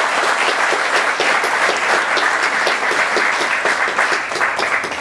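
A roomful of people applauding steadily, many hands clapping, at the close of a speech.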